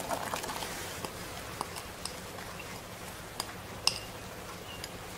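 Scattered light clicks and taps as diced onion is tipped out of a bowl into a plastic-lined slow cooker, the sharpest about four seconds in, over a faint steady low hum.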